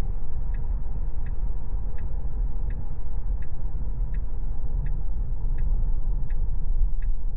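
Turn-signal indicator ticking inside a Tesla's cabin, a steady click about every three-quarters of a second that starts about half a second in, over low road rumble from the moving car.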